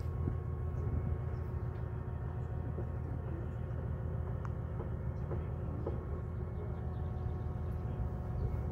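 Engine of a passing river cabin boat, a steady low drone with a constant hum.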